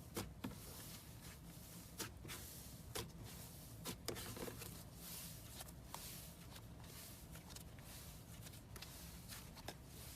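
Faint scattered clicks and light taps, a dozen or so at irregular intervals, over a low steady hum.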